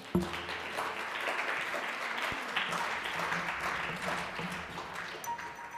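A thump at the very start, then an audience applauding, the clapping dying down near the end.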